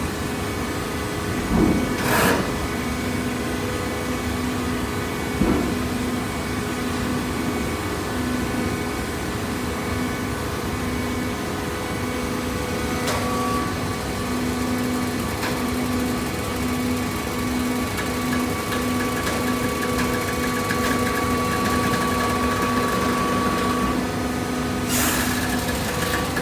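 Vertical hydraulic baler running: the electric motor and hydraulic pump give a steady hum, with a few knocks about two and five seconds in, a higher whine that joins for about ten seconds in the middle, and a short louder clatter near the end.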